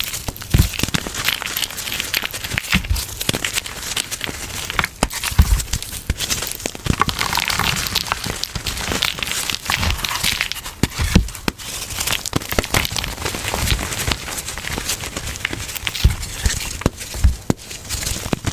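Gritty, crunchy crumbles being crushed and broken apart: a dense, irregular run of crackles and crunches with a few louder snaps.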